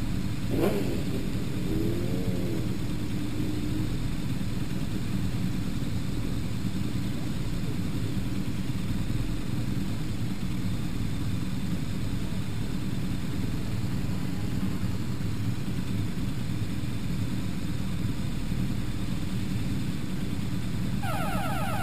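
BMW boxer-twin race motorcycles idling on the starting grid: a steady low engine rumble picked up by the bike's onboard camera.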